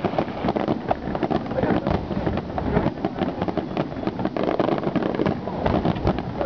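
Aerial firework shells bursting in a finale barrage: many bangs and crackles overlapping one after another without a break, over a low rumble.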